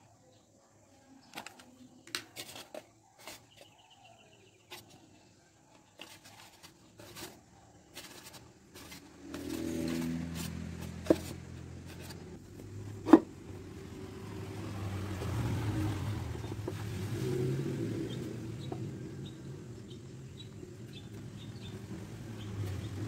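Scattered light clicks and taps of styrofoam cups and a hot glue gun being handled. About ten seconds in, an engine starts running steadily and becomes the loudest sound, with two sharp clicks over it.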